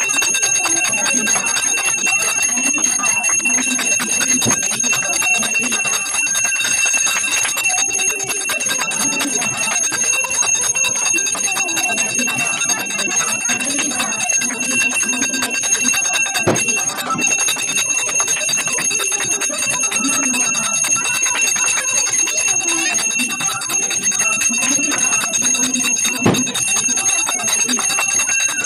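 Brass hand bells (puja ghanti) rung without pause during a Hindu aarti, a steady high ringing, with hand clapping and voices beneath.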